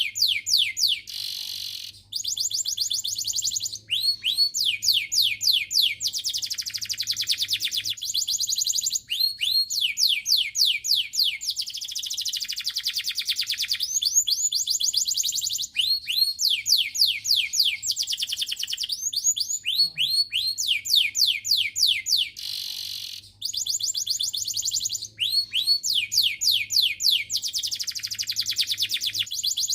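Domestic canary singing continuously: fast trills of short repeated rising notes alternating with denser, buzzy rolled phrases.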